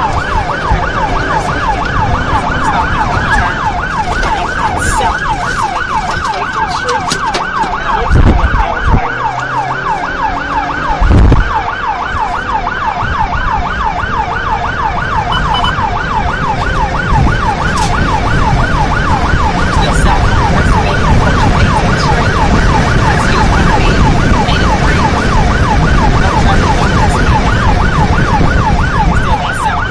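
Police car siren on a fast yelp cycle, rising and falling several times a second, over engine and road noise from a car in pursuit. There are two loud low rumbling surges, about 8 and 11 seconds in.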